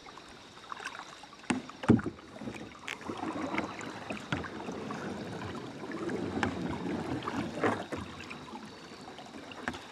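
Kayak paddle strokes and water swishing close to the microphone, with a few sharp knocks, the loudest about two seconds in.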